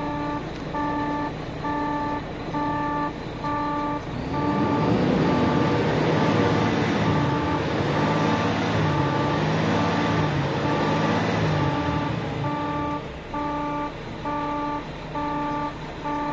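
Volvo FMX truck's diesel engine idling, then revved up and down a few times from about 4 s to 12 s before settling back to idle. Through it all the cab's warning chime beeps steadily, about one and a half beeps a second, with the stop-vehicle engine-fault warning showing on the dash.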